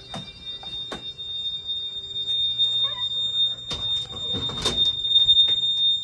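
Simplex fire alarm control panel's built-in sounder giving a steady high-pitched tone, signalling a supervisory condition tripped by a carbon monoxide detector. Several knocks and clicks sound over it, the loudest a little over four seconds in.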